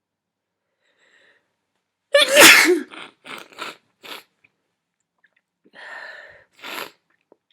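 A person sneezes once, loudly, about two seconds in, then sniffles in several quick sniffs; near the end comes a longer breath and one more sniff.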